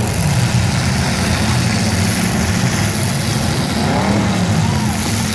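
Demolition derby cars' engines running together, with one revving up and down about four seconds in.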